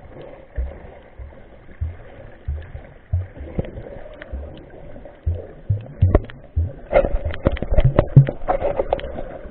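Sea water washing, with repeated short low rumbles of wind on the microphone. A run of sharp clicks comes in the last few seconds.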